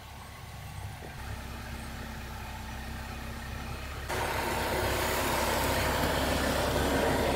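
Jeep Wrangler Unlimited Rubicon's engine running at low revs as the 4x4 crawls slowly up a steep off-road forest track, a steady hum that gets louder from about four seconds in as the vehicle comes close.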